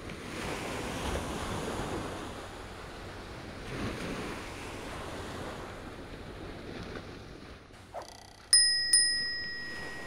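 Surf and wind hiss, swelling and easing, for most of the stretch. Near the end a small bell is struck twice in quick succession, a bright ding-ding that rings on and fades.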